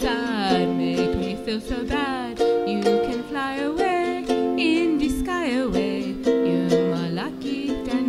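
A woman singing a slow tune, her voice gliding between notes, to her own strummed ukulele chords.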